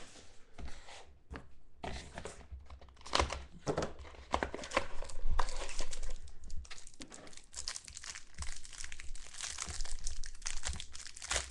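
Plastic wrapper of a 2013 Absolute Football trading-card pack being torn open and crinkled by hand, with cards being handled: irregular crackles and rustles.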